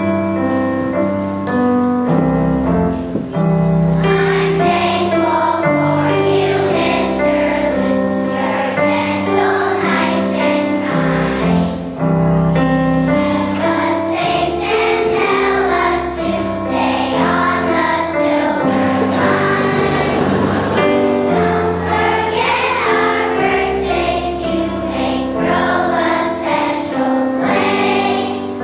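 Young children's choir singing a song together, with instrumental accompaniment carrying sustained chords and a bass line.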